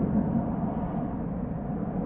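Low rumble of a passing jet aircraft, slowly fading as it moves away.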